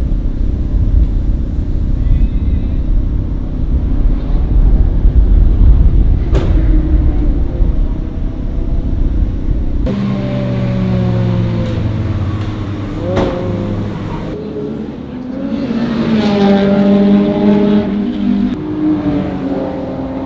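Car engine being driven hard on a race circuit. For the first half there is a heavy low rumble. From about halfway the engine note falls as the car slows and then climbs again through the revs.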